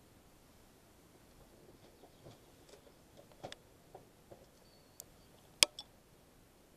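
A quiet room with scattered faint clicks and ticks, the sharpest about five and a half seconds in.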